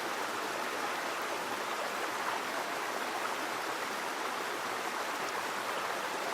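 Steady rushing noise, like running water, holding an even level throughout.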